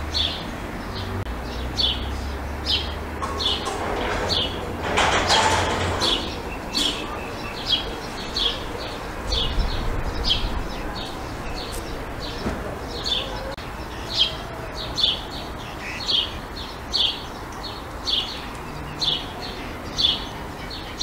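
A small bird chirping over and over, short high chirps repeating about one and a half times a second. A brief rush of noise comes about four to six seconds in.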